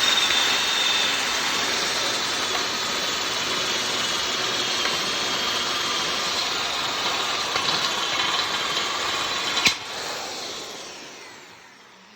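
Power drill with a step drill bit boring through a metal truss, running steadily. About nine and a half seconds in, a sharp crack as the step bit snaps, then the drill winds down and fades.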